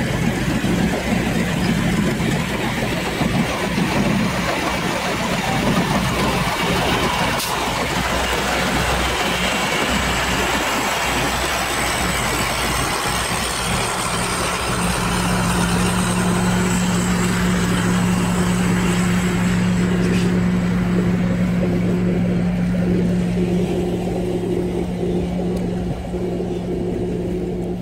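An engine running steadily, with a low hum that grows stronger about halfway through.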